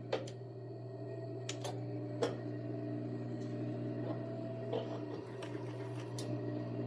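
Industrial sewing machine running with a steady hum as binding tape is sewn onto swimsuit fabric, with a few light clicks scattered through.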